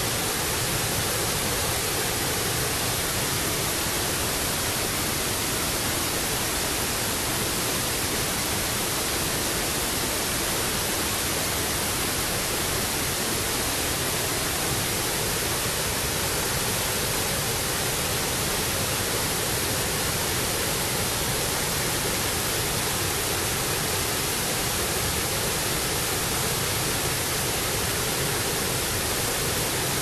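Waterfall running high after heavy rain: a steady rush of floodwater pouring over a wide ledge and churning below it, even and unbroken throughout.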